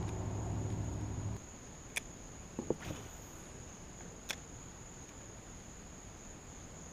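Insects trilling steadily in one unbroken high note, with a low whir over it that cuts off suddenly just over a second in. A few sharp clicks follow.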